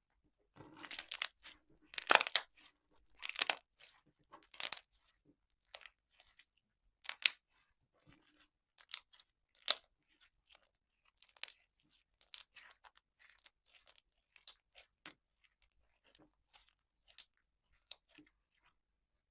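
Slime being squeezed and poked by hand, giving sharp crackling pops and clicks, with a dense run of louder crackles in the first few seconds and scattered single pops after that.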